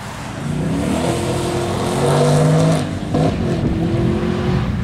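A car accelerating hard away from the show, its engine note climbing in pitch. It shifts up about three seconds in and pulls again.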